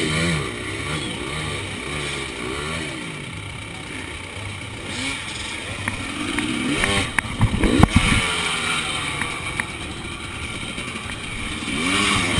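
Enduro motorcycle engine revved in short blips, the pitch rising and falling, with a stronger rise in revs partway through and a few sharp knocks.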